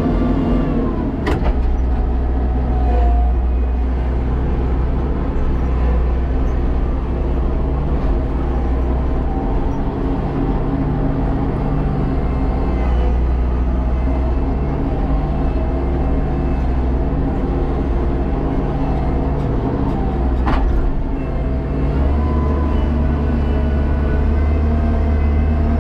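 Kubota tractor's diesel engine running steadily, heard from inside the closed cab, with two short sharp clicks, one about a second in and one near the end.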